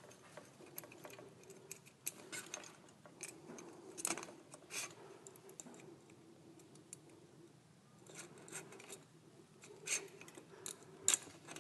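Faint, irregular light clicks and taps of a bicycle gear cable and its outer housing being fed through the small cable guide collars on an aluminium tricycle frame.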